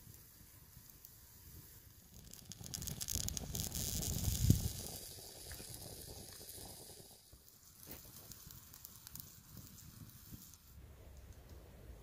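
A hissing sizzle that swells about two seconds in, is loudest near the middle, where a short thud is heard, then dies down to a faint hiss.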